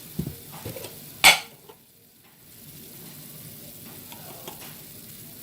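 A spoon clinking against a pot a few times, with one sharp strike about a second in, then the steady bubbling hiss of a pot of pork broth at a rolling boil.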